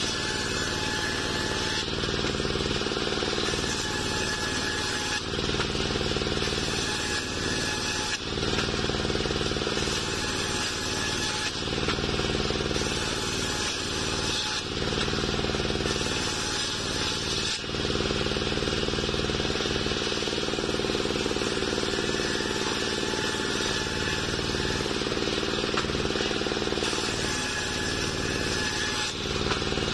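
Homemade table circular saw, driven by a small stationary engine, running steadily while ripping waru wood slabs. The engine's steady tone breaks and changes every few seconds as the blade takes up and sheds the load of each cut.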